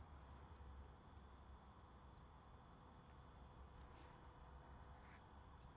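Faint cricket chirping: an even run of short high chirps, about four a second, over a low rumble.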